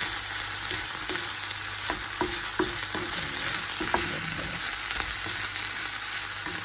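Tuna, onion and tomato sizzling in a frying pan while a wooden spatula stirs them, with scattered light knocks of the spatula against the pan.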